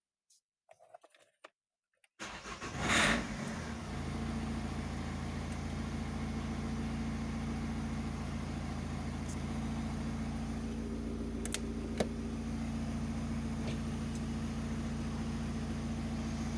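Opel Combo's 1.7 diesel engine cranking and catching about two seconds in, flaring up briefly, then settling into a steady idle. It starts now that a leaking hole in the fuel line has been patched and the system primed with a hand bulb.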